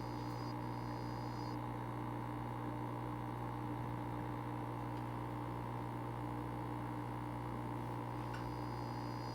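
Steady low hum from an African dwarf frog's aquarium, unchanging throughout, with a faint high tone that cuts in and out a few times.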